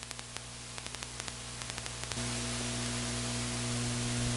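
Steady hiss with faint crackles and a low electrical hum. About two seconds in a second, higher-pitched hum joins and the noise grows louder.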